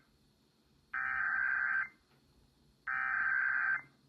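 Emergency Alert System SAME header: two abrupt, roughly one-second bursts of digital data tones about a second apart. These are the repeats of the header that encodes the alert's type and area, here a Child Abduction Emergency.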